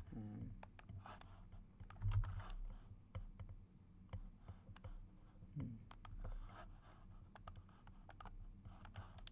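Irregular, scattered clicks of a computer mouse and keyboard keys being pressed.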